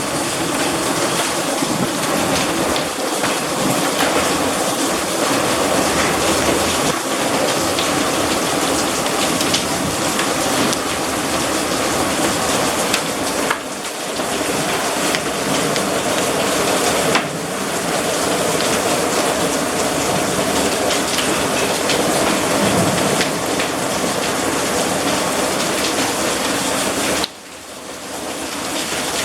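Heavy rain and hail pelting down, a loud, dense patter of countless small impacts. The loudness drops abruptly a few times, most sharply near the end, then builds back.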